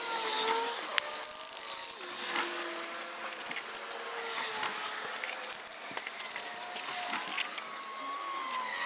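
Aerosol spray can hissing in short bursts as black paint is sprayed onto hanging 3D-printed plastic taillights, with a faint wavering hum beneath.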